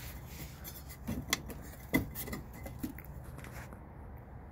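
A few light clicks and taps of the metal breaker-panel cover being pressed and shifted by hand around the new main breaker, the sharpest about two seconds in.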